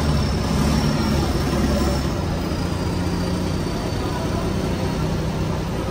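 Large diesel bus engines idling and running, a steady low drone, with a faint high whine slowly falling in pitch over the first few seconds.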